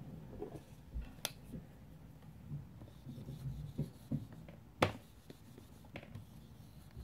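Small dry-erase whiteboard being wiped clean with a handheld eraser: faint rubbing and soft knocks against the board, with a sharp click about a second in and another a little before five seconds.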